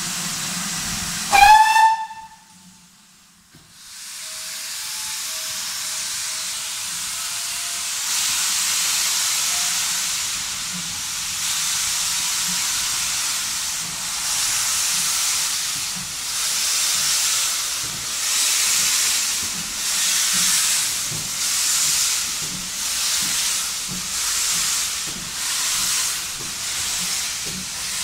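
Steam locomotive whistle gives a short blast about a second in. Then the engine's steam hiss builds and its exhaust beats begin, slow puffs that quicken steadily as the train pulls away.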